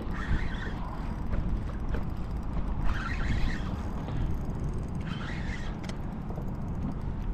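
Wind buffeting the microphone of a head-mounted action camera over choppy open water, a steady low rumble, with a few short hissing bursts about a third of a second in, around three seconds and around five seconds.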